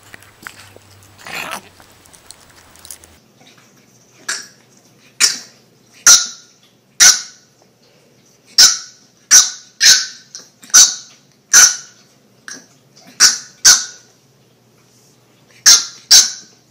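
A dog barking in a string of about fourteen short, sharp barks, starting about four seconds in, some coming in quick pairs.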